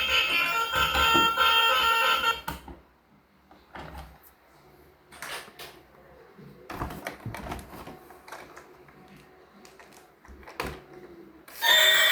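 A bright, many-toned tune plays for about two seconds and cuts off abruptly. Scattered light clicks and knocks follow, with a loud tune starting again near the end.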